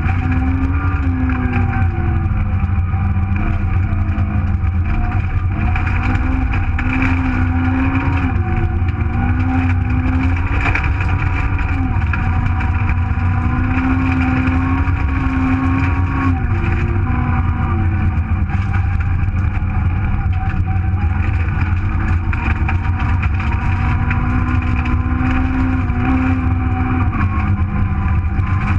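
1.4-litre Super1000 Nissan Micra rally car engine heard from inside the cabin, pulling hard with its revs rising and falling again and again over a heavy low rumble.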